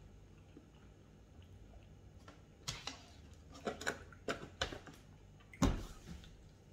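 Plastic lid of an ice cream tub being handled and pressed down: a run of short clicks and knocks, then one louder thump.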